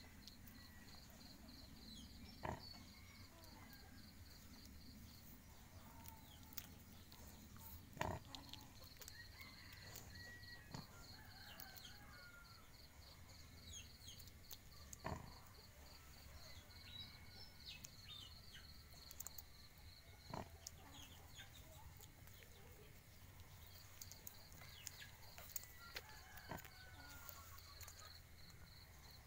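Quiet farmyard sounds: chickens clucking in the background and soft grunting from a nursing sow and her newborn piglets, over a faint, steady, high pulsing tone, with a few sharp knocks.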